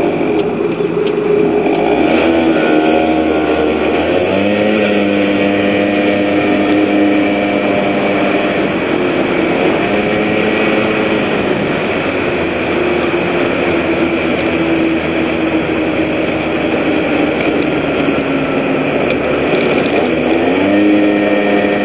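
Genuine Scooter Company Rattler 110cc (PGO PMX) two-stroke scooter engine pulling along a street. Its pitch rises four times as the throttle opens and holds steady in between, over wind and road noise. The engine is running cold, not quite warmed up yet.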